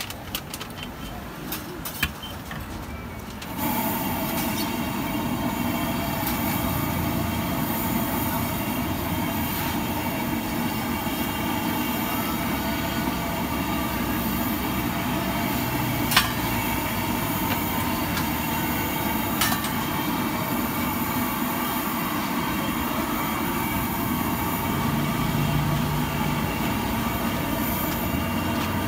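High-pressure gas wok burner running steadily under a wok of hot oil, coming on loud about three and a half seconds in, with a couple of single clicks later.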